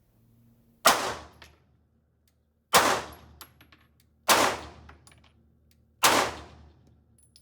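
Four single shots from a Sig Sauer M17 9mm pistol, fired one at a time about one and a half to two seconds apart, each a sharp report that dies away in a short echo.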